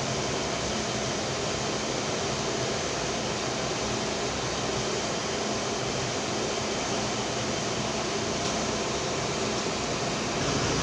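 Steady whooshing noise like a running fan, with a faint low hum and no change throughout.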